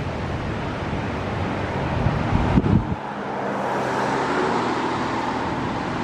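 Road traffic passing: a car's tyre and engine noise swells about three seconds in and eases off. Low wind gusts rumble on the microphone just before it.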